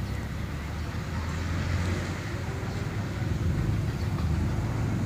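Low, steady rumble of motor-vehicle traffic in the background, swelling a little about halfway through.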